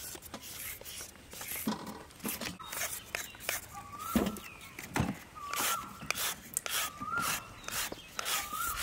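Hand vegetable peelers and a knife scraping along raw carrots: repeated short rasping strokes as thin strips come off. A short high call that bends in pitch repeats about four times in the second half.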